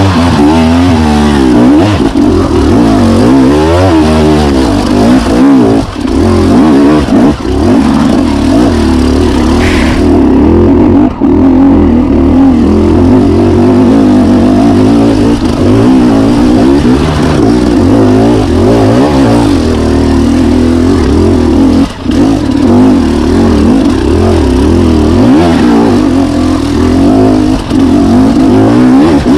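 Dirt bike engine working hard up a steep, rough trail, its revs rising and falling constantly as the throttle is worked. The power drops off briefly a few times.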